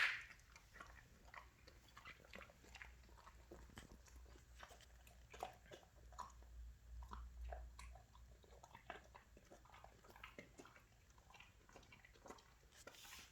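Golden retriever chewing a snack: faint, irregular crunches and bites, with a sharper click right at the start.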